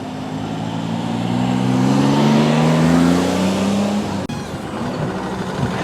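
A motor vehicle engine accelerating, its pitch climbing steadily for about three and a half seconds and loudest midway. Then the rising note breaks off about four seconds in, leaving a lower steady engine hum.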